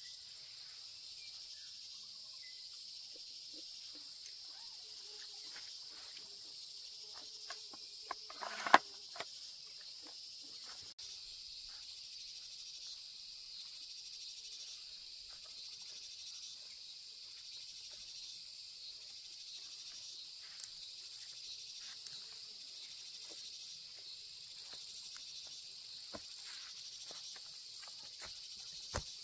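Steady high-pitched chorus of insects such as crickets, with scattered light clicks and one sharp snap about nine seconds in.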